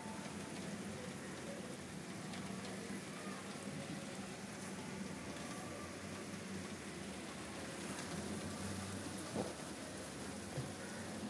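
Light rain falling steadily on a concrete rooftop, an even hiss of drops, with one sharp tap about nine seconds in.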